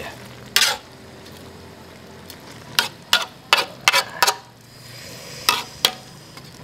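Long metal spatula scraping and clanking against an aluminium wok as whole eels in a chilli and herb mixture are stirred. The strokes are irregular, with a quick run of several near the middle, over a steady sizzle from the pan.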